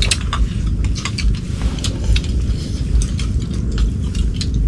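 Scattered light clicks and clinks of chopsticks and ceramic bowls during a meal, over a steady low rumble.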